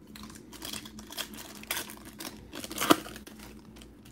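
Foil wrapper of a trading card pack being torn open and crinkled by hand: a run of crinkly rustles with a sharp rip just before three seconds in.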